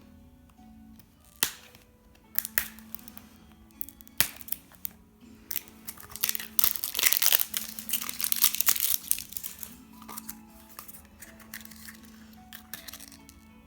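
Plastic wrapper crinkling and tearing as a squishy toy packet is opened, over light background music. There are a few sharp crackles early on, then a dense stretch of crinkling in the middle.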